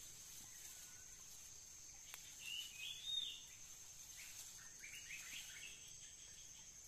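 Outdoor ambience of insects with a steady high-pitched buzz, over which a bird chirps a few times about two to three seconds in, then gives a quick run of short notes a second or so later.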